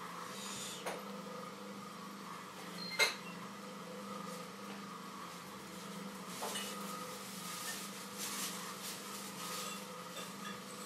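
Potter's wheel turning with a steady hum while wet, clay-covered hands shape the neck of a thrown bottle, with soft swishing of hands on the clay in the second half. A sharp click about three seconds in.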